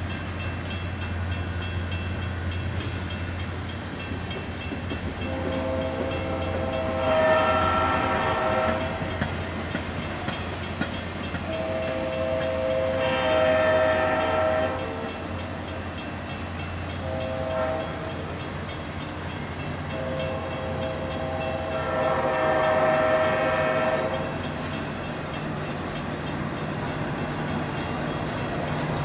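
Passenger coaches roll past with a steady low rumble while the SD40-3 diesel locomotive at the head of the train sounds its multi-tone horn: long, long, short, long. This is the standard signal for a grade crossing.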